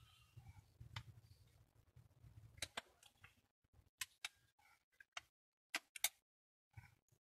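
Scattered light clicks and ticks of a hand tool and small parts knocking against a bicycle pedal as it is worked on by hand. There are about ten irregular clicks, the loudest about six seconds in, with near silence between them.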